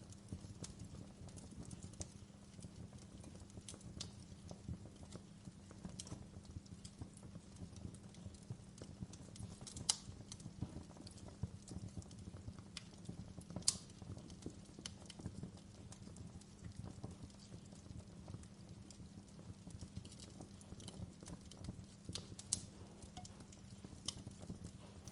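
Campfire crackling: irregular sharp pops and snaps over a low, steady rumble of burning, with the loudest pops about ten and fourteen seconds in.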